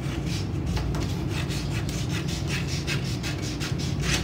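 Scissors snipping through folded card down the crease, a run of short cuts about three or four a second.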